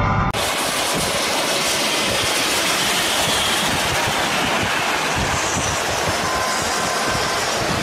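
Steady, loud rushing road noise of vehicles travelling at speed on a road, starting with an abrupt cut from music.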